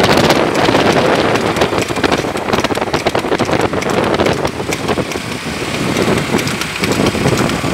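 Wind buffeting the microphone over the running of vehicles moving alongside, loud and unbroken.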